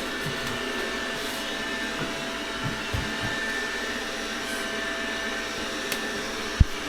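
Robot vacuum cleaner running with a steady whirring hum, with a few light knocks and a sharp click near the end.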